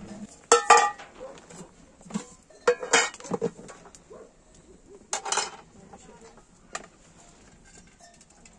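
Metal cookware clinking: a spoon and metal pots and pans knocking against each other in a few short ringing clinks, the loudest about half a second in, then more around three seconds and five seconds in.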